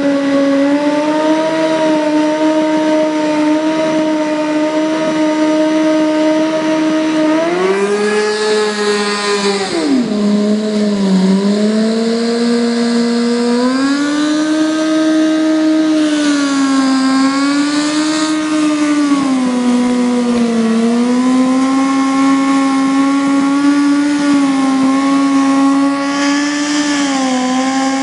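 Sport motorcycle engine held at high revs during a stationary burnout, the rear tyre spinning on concrete. The revs dip and climb again several times, and bursts of tyre squeal come three times.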